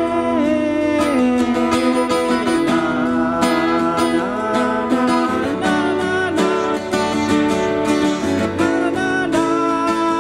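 Two acoustic guitars playing a song together.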